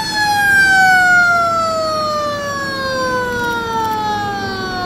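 A siren winding down: one wailing tone with its overtones, falling slowly and steadily in pitch.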